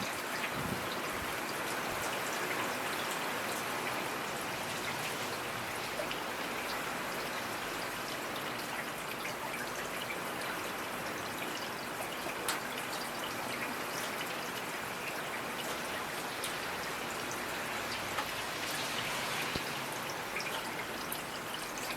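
Steady rainfall, with many small drops pattering and faint trickling water.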